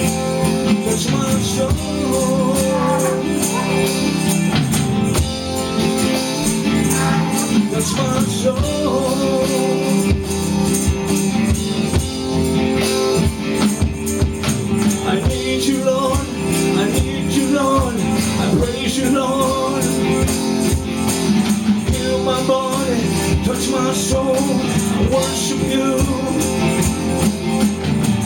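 Music: a song with a steady beat, guitar and singing.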